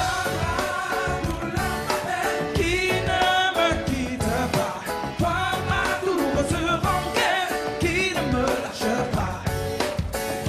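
Live band playing a pop-soul song, the drum kit keeping a steady beat, with voices singing over it.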